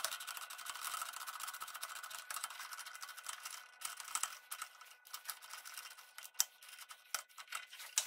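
Steel parts of a home-made tap wrench screwed together and handled on a lathe's cross-slide, played back at five times speed. A rapid run of metallic clicks and scrapes over a steady high hum thins out to separate clicks in the last few seconds.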